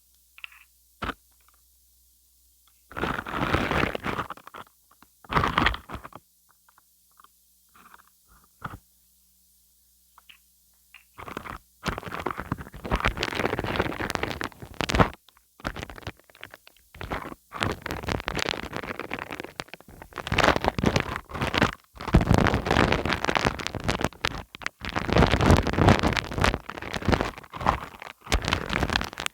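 Dried PVA wood glue film being peeled off a wide surface, making crackling, crunchy tearing noise. It comes in a few short bursts at first and runs almost without a break from about a third of the way in.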